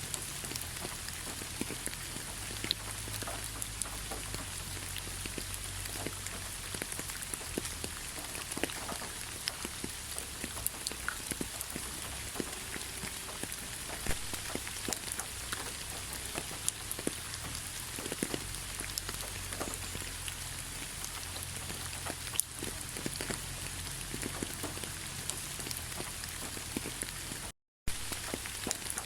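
Rain falling steadily: an even hiss with many individual drops pattering close by. It cuts out for a split second near the end.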